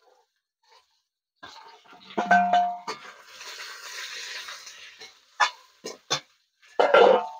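A long metal spatula stirring and scraping vegetables in a large aluminium wok, clanking against the pan several times, with the hiss of the vegetables frying in oil in between.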